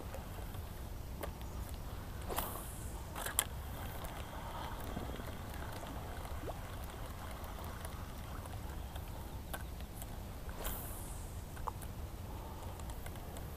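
Small fishing boat on calm water: a steady low rumble with scattered sharp clicks and knocks from the rod, reel and boat gear, two of them close together in the first few seconds and another near the end.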